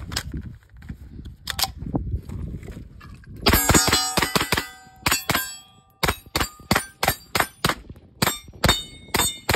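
Smith & Wesson M&P FPC blowback 9mm carbine firing: a quick string of shots about three and a half seconds in, then steady shots about three a second. Each hit sets a steel target ringing.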